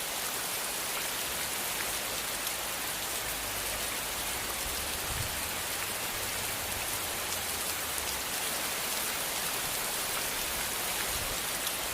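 Rain falling steadily: an even, unbroken hiss of downpour.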